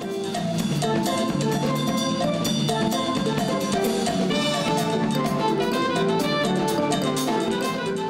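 Small jazz band playing a Latin jazz piece live, with drum kit and hand percussion keeping a busy beat under held melody notes.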